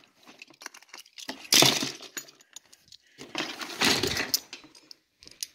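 Small die-cast metal toy cars clinking and clattering as they are handled, in a few short bursts.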